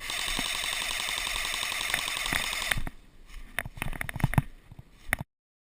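Airsoft electric gun firing one long full-auto burst of about three seconds, a fast steady rattle with motor whine. A few scattered clicks and knocks follow, and the sound cuts off suddenly near the end.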